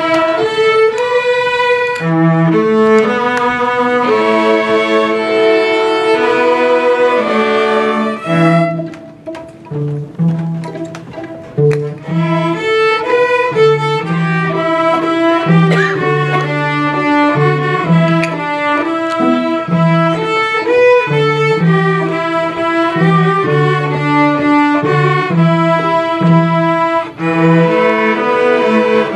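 Small string ensemble playing: violins over a cello line, in short repeated bowed notes, thinning out and quieter for a few seconds about a third of the way through before the full group comes back in.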